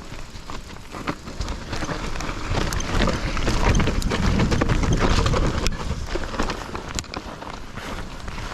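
A hardtail mountain bike rolling down a dirt trail, with tyres on loose ground, the bike rattling and ticking over bumps, and wind rushing across the microphone. The noise grows louder about a second and a half in.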